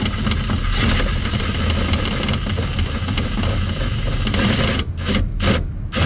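A steady mechanical running noise with a low rumble and a faint high whine, broken by a few short surges near the end.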